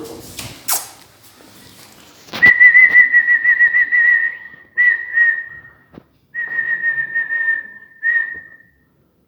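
A person whistling one steady high note with a slight waver, in four long stretches starting about two seconds in.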